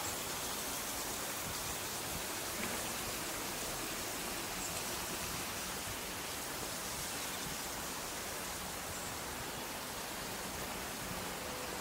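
Steady, even rush of running water from a garden water feature, unbroken throughout.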